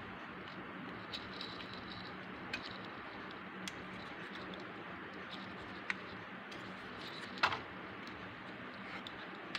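Scattered light clicks and taps from a homemade cardboard-and-plastic toy harvester model being handled, over a steady background hiss with a faint low hum. The sharpest click comes about seven and a half seconds in.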